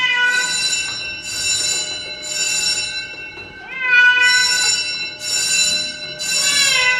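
A domestic cat meowing loudly and repeatedly, about one cry a second, some cries sliding down in pitch.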